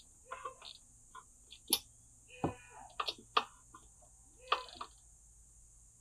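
Scattered clicks and clinks of a hand wrench working on motorcycle crankcase bolts, with one sharp click about two seconds in. Faint voices now and then, over a steady high-pitched insect drone.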